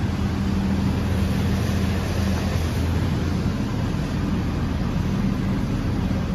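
Steady low hum of an idling vehicle engine over street noise.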